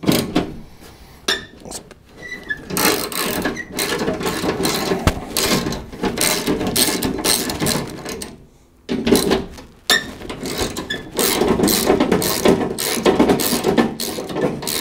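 Socket ratchet clicking rapidly as it loosens 11 mm bolts on a tailgate window clamp, in two long runs with a short pause just past the middle.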